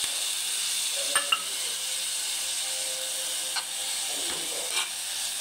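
Grated coconut and jaggery sizzling steadily in a hot pan with a little water just added, a metal spoon clicking against the pan a few times as the filling is stirred.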